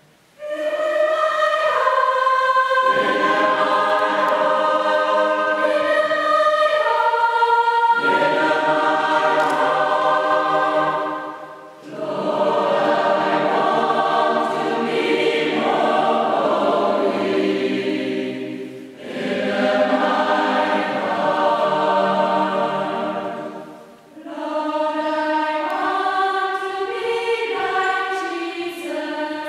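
Mixed choir of women and men singing in several parts, in long phrases with three short breaks between them.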